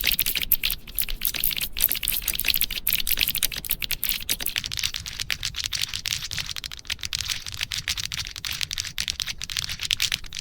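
Keyboard keys clicking and clacking in a rapid, dense run of strokes, many a second, with no clear musical pitch.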